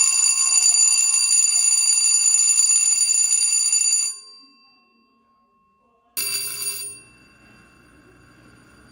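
Electric school bell ringing continuously for about four seconds, its gong ringing on briefly as the clapper stops. After about a second of quiet it rings again in a short burst of under a second.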